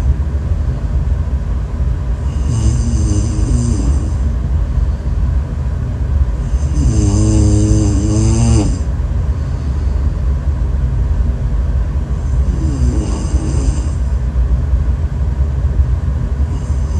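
Loud snoring: a pitched, wavering snore about every five seconds, each with a breathy hiss, over a steady low rumble.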